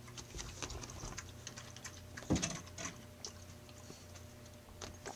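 A kitten playing with a catnip toy on carpet: quick, irregular ticks and rustles, with one louder knock a little over two seconds in.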